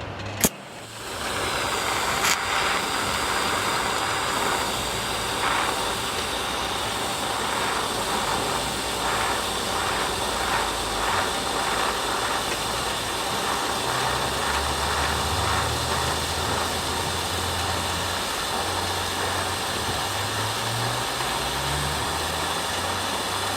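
Electric welding arc crackling and hissing steadily after a click at the start, with a low hum underneath.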